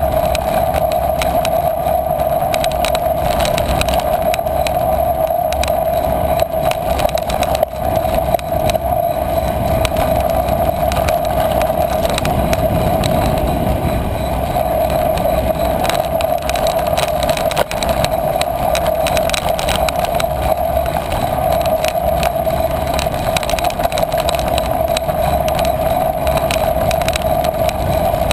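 Steady riding noise from a bicycle rolling over a sandy, grassy dirt track, picked up by a camera mounted on the bike: a constant rumble with a steady mid-pitched hum throughout and a few small knocks from the bumps.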